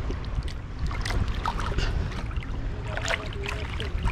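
Water sloshing and splashing close by as a fish is released by hand into the shallows, with short irregular splashes over a steady low rumble.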